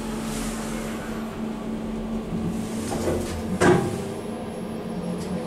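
Kone EcoDisc passenger lift travelling down with a steady low hum, and a single sharp clunk about three and a half seconds in.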